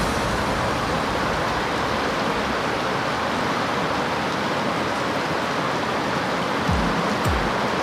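Steady hiss of heavy rain falling. Background music comes back in near the end.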